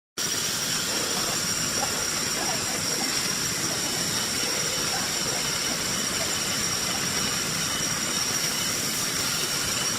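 CNC router running steadily: a constant high whine from its spindle over an even hiss.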